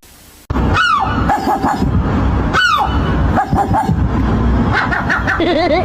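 Animal yelping: two sharp, falling cries about two seconds apart, over a steady low background sound, after a brief quiet gap at the start.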